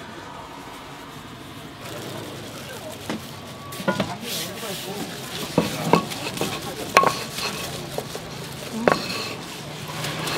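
Food-prep handling at a hotteok stall: from about three seconds in, about eight short, sharp knocks and clinks, some with a brief ring, over a steady background hiss, as gloved hands work and press dough on a wooden board.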